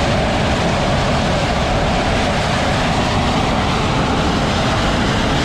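Steady jet-engine noise of a fighter jet, even and unchanging throughout.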